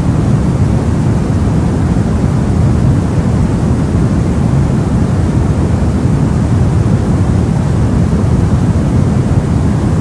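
Steady white noise for soothing a baby, heavy in the low end so it sounds deep and rumbling rather than hissy, with no change in level.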